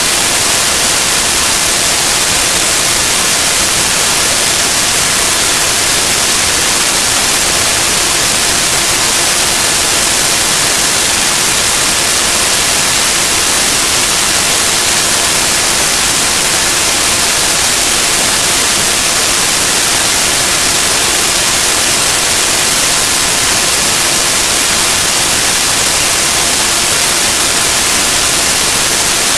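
Loud, steady hiss of static filling the whole sound, unchanging throughout, with faint steady hum tones beneath it.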